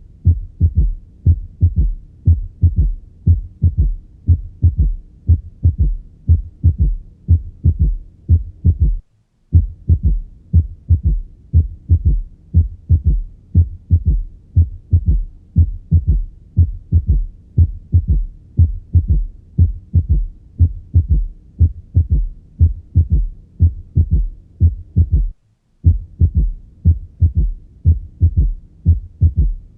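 Heart sounds through a stethoscope with a third heart sound (S3): a regular run of low, dull beats in which a soft extra beat follows right after the second sound, giving a three-beat ventricular gallop rhythm. The S3 comes from rapid early filling of the ventricle and is a sign of systolic dysfunction and heart failure, though it can be normal in children, young adults and late pregnancy. Twice the sound breaks off for a moment.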